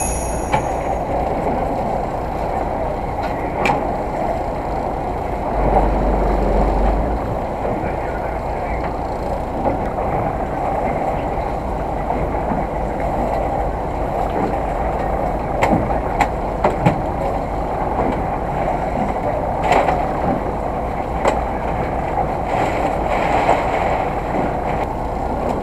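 Steady drone of a small fishing boat's engine running at sea, mixed with wind and water noise, with a few scattered light knocks on deck.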